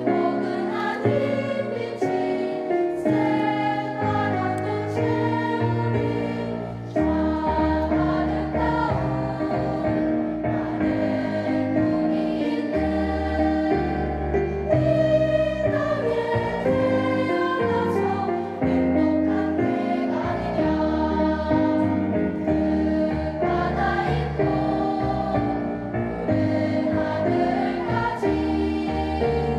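Children's choir singing a song, with instrumental accompaniment carrying sustained bass notes underneath.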